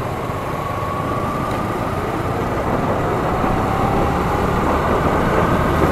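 Motorcycle on the move: a steady engine rumble with wind rushing across the microphone, growing a little louder.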